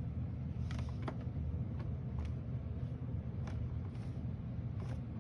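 A few separate light clicks of hand tool and plastic casing handling as the rear cover of an all-in-one PC is worked loose, over a steady low hum.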